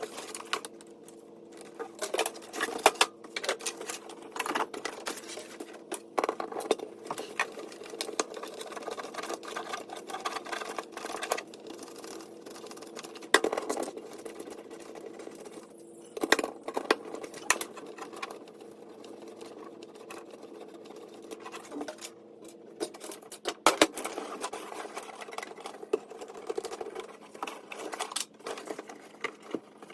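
Irregular clicks, taps and rattles of hand work on a car's wiring and parts, over a steady low hum.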